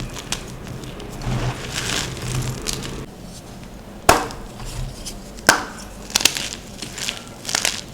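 Blocks of gym chalk being crushed and crumbled. Soft crumbling runs through the first few seconds, then several sharp crunching snaps follow in the second half, the loudest about four seconds in.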